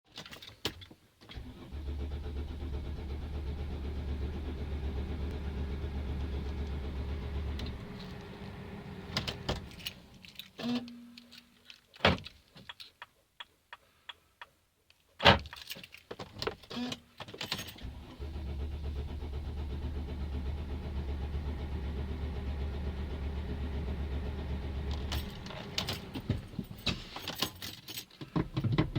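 Mercedes-Benz Sprinter van's diesel engine being cranked on the starter in two long attempts of about six seconds each, with clicks and a short tone in between. This is a hard start, the engine slow to fire. After the second attempt the sound turns uneven.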